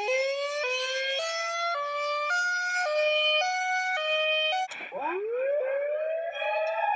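Electronic siren sounding a two-tone pattern, switching between a high and a low note about every half second, each note sliding up slightly. About five seconds in it cuts with a click and changes to a wail that rises and levels off.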